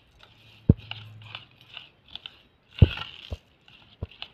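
Spoon stirring sago pearls into curd in a steel bowl: crunchy scraping, with four sharp knocks of the spoon against the bowl, the loudest about three seconds in.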